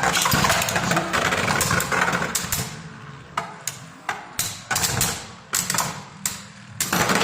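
Two Beyblade Burst spinning tops whirring and scraping against each other in a plastic stadium just after launch. The whirr fades as they slow, with a string of sharp clacks as they collide.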